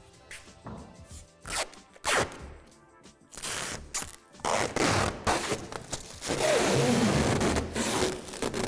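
Protective plastic film being peeled off a polycarbonate basketball backboard: short crackling tears and knocks, then a long continuous crackling peel in the second half.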